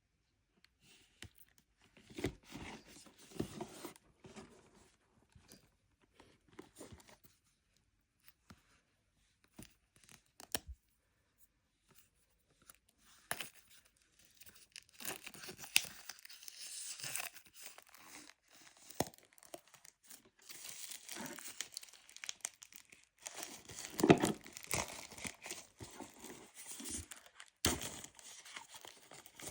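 Plastic packaging on a Pokémon card Elite Trainer Box being torn and crinkled by hand, in short separate crackles at first and then more steadily from about halfway through, with a few sharp clicks.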